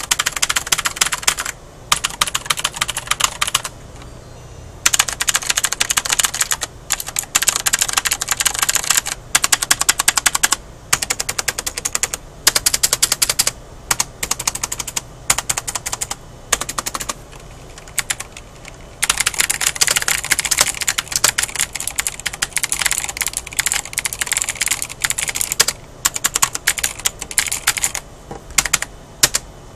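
Typing on a mechanical keyboard with Cherry MX Blue clicky switches: fast runs of sharp key clicks, broken by short pauses.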